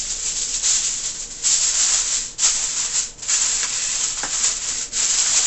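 Aluminium foil crinkling and rustling as it is folded double and crimped around the edges of a baking tray, in uneven bursts with a few short breaks.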